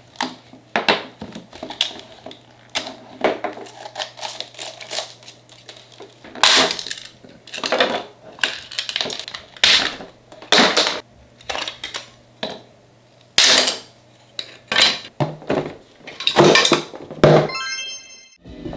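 Irregular clattering knocks and bangs of hard objects, some sharp and loud, over a low steady hum that stops about two-thirds of the way through. A brief high tinkling tone comes just before the end.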